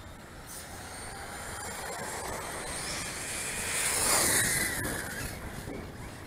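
Radio-controlled model cars running on brick paving, one passing close: motor whine and tyre rumble swell to a peak about four seconds in, then fall away.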